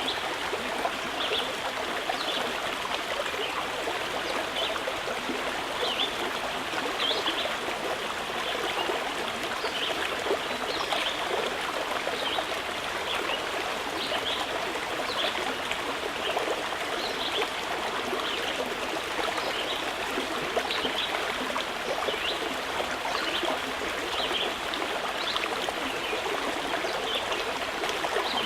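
Stream water flowing steadily, a continuous babble dotted with small, irregular high splashes.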